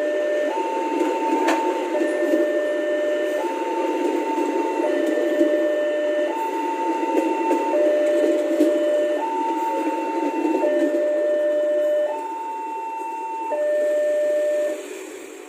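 Passenger train coaches rolling past with a steady rumble, under an electronic two-tone warning signal that alternates high and low, each tone about a second and a half long. Both fade away shortly before the end as the last coach clears.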